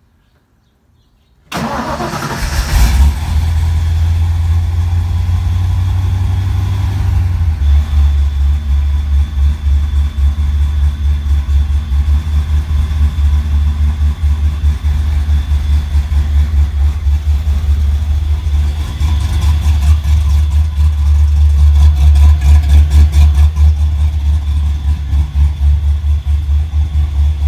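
1988 Mustang GT's 5.0 L small-block Ford V8, fitted with a Holley Terminator fuel injection and a Trick Flow cam, starting about a second and a half in and settling into a pulsing idle at around 1,100 rpm. It is running on its pre-dyno tune, which the owner says isn't right yet, with the ignition timing off.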